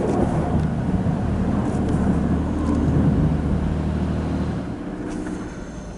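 Car creeping forward into an automatic car wash, heard from inside the cabin: a steady low engine and tyre rumble that dies down about five seconds in as the car slows.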